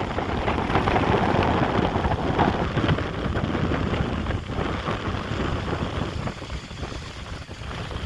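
Strong storm wind buffeting the microphone over the wash of rough sea and breaking waves, louder in the first few seconds and easing off toward the end.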